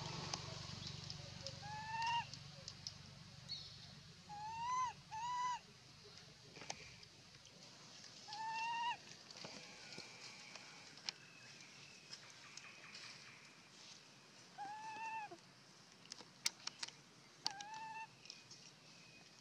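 Baby macaque giving short, high, arched coo calls about six times, two of them in quick succession about five seconds in, with faint rustling clicks in the dry leaves.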